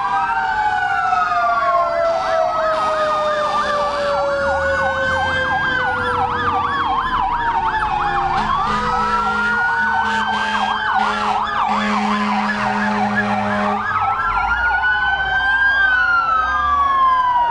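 Several fire engine sirens sounding at once: slow wails that rise and fall every few seconds, overlapping a fast warbling yelp. A low horn sounds in short blasts about halfway through, then one longer blast.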